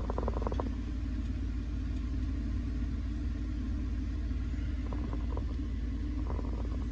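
Steady low mechanical rumble, with a few brief faint clicks and rattles at the start and again about five and six seconds in.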